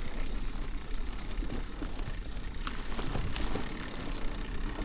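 Fat-tyred mountain bike rolling over forest ground: a steady rumble from the tyres with scattered small clicks and rattles.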